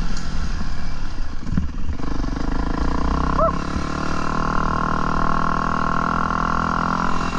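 Off-road dirt bike engine running at a steady pitch. A short rising-and-falling chirp comes about three and a half seconds in.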